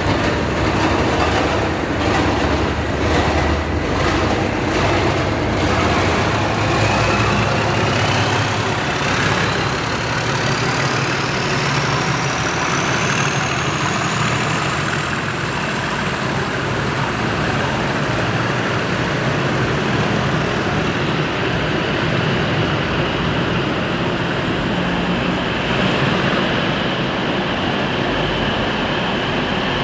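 English Electric Class 37 diesel locomotives pulling away under power: a deep engine growl with a turbocharger whine that climbs steadily in pitch for about fifteen seconds, then holds level as the engine settles at high power.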